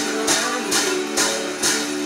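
Strummed guitar music with a steady beat, and a homemade jingling johnny (stump fiddle) with a pie pan and a bell bounced in time, giving a jingling crash just over twice a second, four in all.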